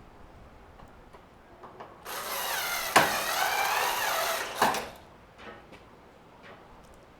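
Cordless driver running for about two and a half seconds to drive a screw, its motor whine shifting in pitch, with a sharp click part way through. Faint handling clicks come before and after.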